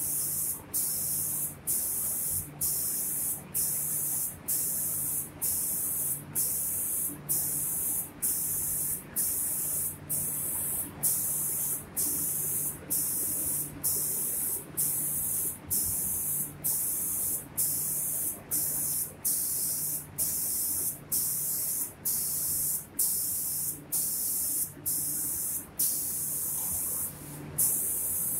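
Automatic spray-painting machine's spray gun hissing as it atomises paint over cabinet doors. The hiss cuts out briefly at an even rhythm, about once every 0.8 seconds, with a low machine hum pulsing in step.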